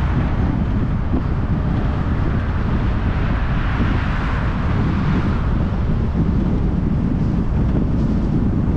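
Road noise from a car on the move: a steady low rumble of tyres and wind buffeting the microphone, with a higher hiss that swells and fades about three to five seconds in.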